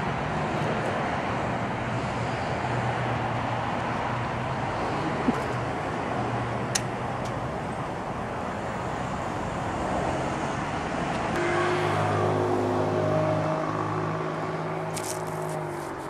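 Road traffic with a motor vehicle engine running close by. A steadier engine hum builds about two thirds of the way in and eases off near the end.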